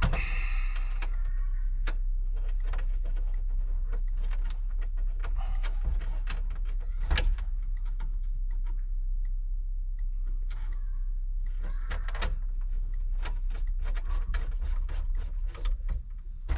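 Irregular clicks, knocks and plastic rattles of a truck's instrument cluster and dash parts being handled and pushed back into place, over a steady low hum.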